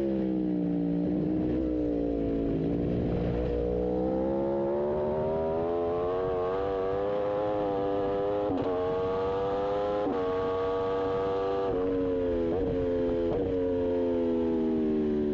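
Aprilia RSV4 1100 Factory V4 engine at racing revs. The note falls under braking with quick throttle-blipped downshifts, then climbs as the bike accelerates, broken briefly by two gear changes. Near the end it drops again with two more blipped downshifts.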